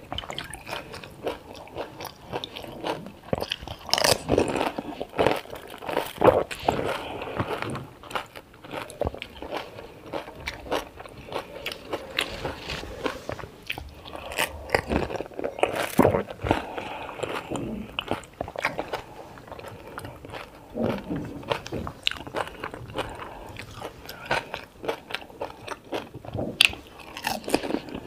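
Pani puri being eaten close to the microphone: crisp puri shells crunching between the teeth, with chewing, in many irregular bites.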